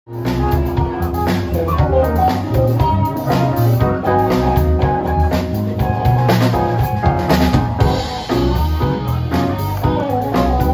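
Live band playing: electric guitar over bass guitar and drum kit.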